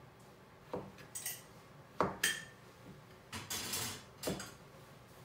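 Kitchen clatter as an avocado is cut on a plastic cutting board: a kitchen knife knocking on the board and utensils clinking. There are several sharp knocks and a short scraping rattle about three and a half seconds in.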